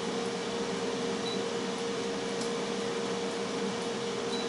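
Tristar FR-6989 air fryer running while it cooks, its fan blowing with a steady hum.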